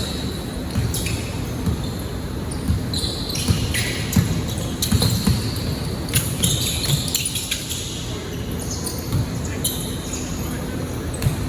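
Basketball being dribbled and bouncing on a hardwood gym court, with short high-pitched squeaks and scattered players' voices echoing in the hall.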